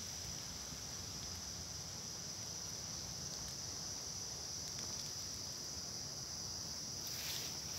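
Steady, high-pitched insect chorus in a tropical garden, over a low rumble of wind on the microphone, with a brief rustle near the end.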